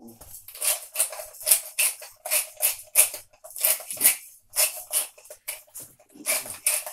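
Seasoning being shaken or ground onto a raw lamb cut in quick, rhythmic strokes, about two to three a second, with a short gap near six seconds.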